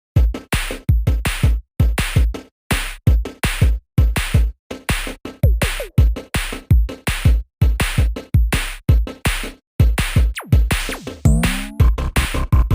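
Electronic music with a fast drum-machine beat and heavy bass, with a few sweeping pitch glides near the end.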